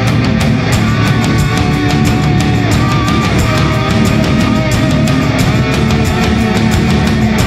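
Loud hard rock music with distorted guitars and a steady drum beat.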